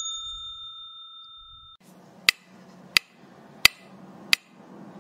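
A bright electronic chime rings and fades, then cuts off sharply after about two seconds. A steady run of sharp ticks follows, about three every two seconds, over a faint low hum.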